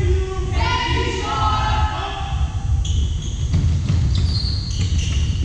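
Basketballs bouncing and sneakers squeaking on a hardwood gym floor as players run a drill, with the squeaks starting about three seconds in.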